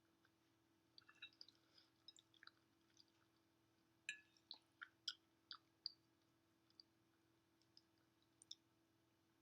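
Faint eating sounds of someone chewing mac and cheese: scattered soft mouth clicks and smacks, in a cluster about a second in and a busier one from about four to six seconds in.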